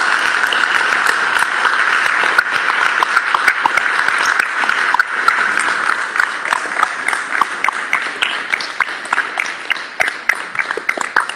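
Audience applauding: dense clapping at first that thins out into scattered, separate claps over the last few seconds.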